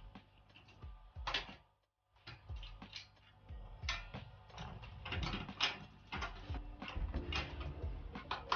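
Irregular metallic clicks and clanks of hand tools working on a bicycle wheel's hub and axle, with a ratchet-like run of clicks.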